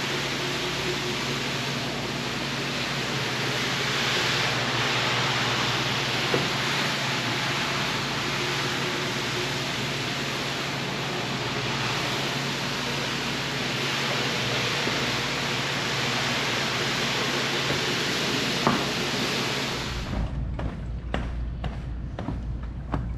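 Rug-washing equipment running: a steady hissing rush with a low motor hum. It stops abruptly near the end, leaving a few light clicks and knocks.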